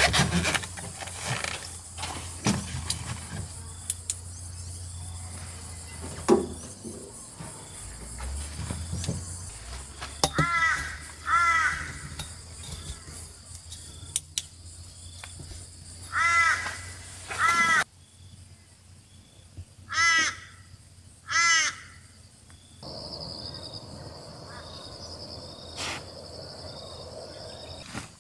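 A crow calling: six harsh caws in three pairs, the two calls of each pair about a second apart.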